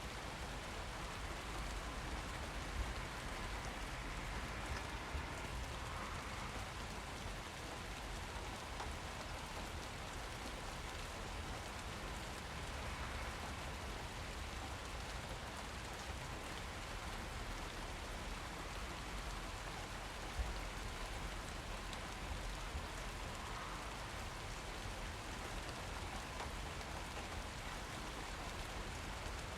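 Steady rain falling and pattering on surfaces, with the odd louder drop.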